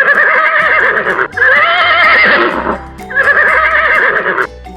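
Horse whinnying three times in a row, each call a little over a second long with a quavering, shaking pitch.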